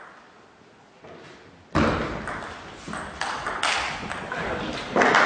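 Table tennis rally: the ball being struck by the paddles and bouncing on the table, sharp pings every third to half second with the echo of a large hall, starting with a loud hit about two seconds in.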